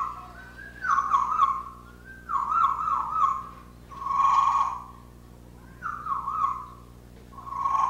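African grey parrot whistling a tune on cue: five short whistled phrases, each under a second, most with a warbling, wavering pitch, separated by brief pauses.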